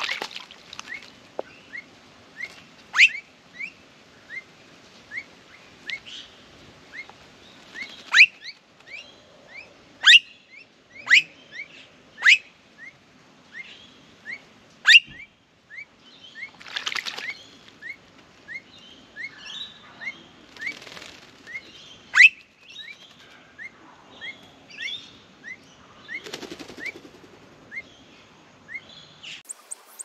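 Blue-faced honeyeaters bathing in a birdbath: a few short bouts of splashing and wing-beating in the water, with a bird chirping over and over in short rising notes and several sharp, loud calls.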